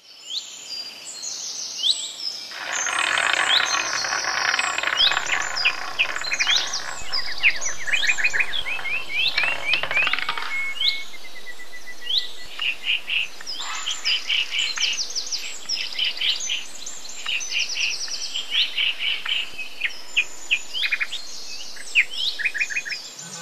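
A chorus of many songbirds chirping and singing at once: dense, rapid, high chirps and quick downward-sweeping notes. From about two seconds in there is a noisy background layer with a low hum beneath the birds, and it drops out abruptly about ten seconds in.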